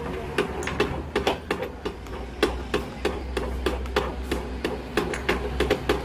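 Irregular sharp taps or knocks, several a second, over a steady low hum.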